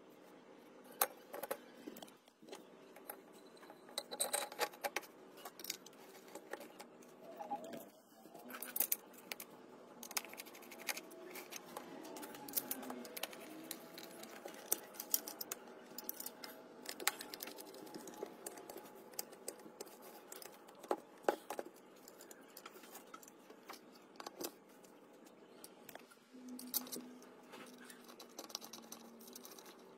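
Scattered small clicks, taps and scrapes of metal parts being handled while an electric fan's motor housing is reassembled, including a screwdriver turning the housing screws.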